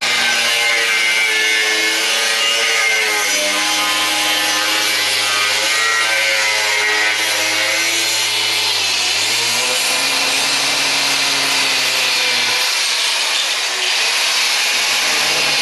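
Power cutting tool cutting through a metal exhaust clamp. It runs continuously and loudly, and its motor pitch wavers and drops as it loads up in the cut.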